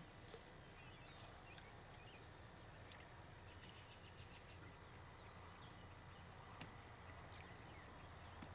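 Near silence: faint outdoor background with a steady low hum, a few soft clicks, and a brief run of rapid high ticks about halfway through.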